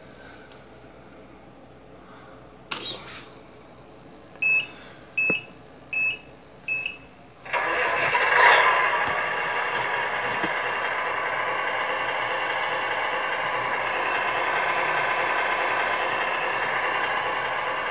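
Tamiya Scania R620 1/14 RC truck's electronic sound unit: a click, then four short high beeps, then a simulated diesel engine starting about seven and a half seconds in and settling into a steady idle from the model's small speaker.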